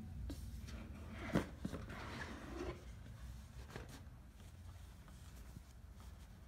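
Unboxing handling noise: a cardboard gift box being opened and its non-woven fabric dust bag rustling as it is moved, with a sharp knock about a second and a half in. Quieter scattered rustles follow over a faint low hum.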